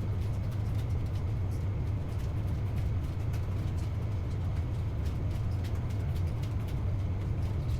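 Steady low rumble with faint, scattered ticks above it.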